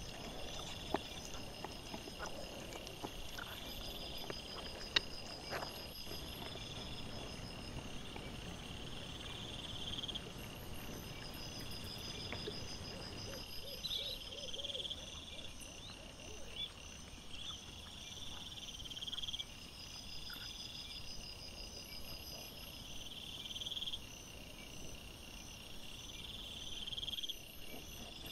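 Insects chirping at night in repeated trills of a second or two each. Through the first half there is low rustling from wild boar and piglets rooting on the forest floor, with sharp clicks about one and five seconds in.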